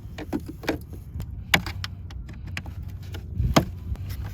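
Plastic mounting pieces on a car emblem being broken off and pried out: a run of sharp clicks and cracks, with two louder snaps about one and a half and three and a half seconds in.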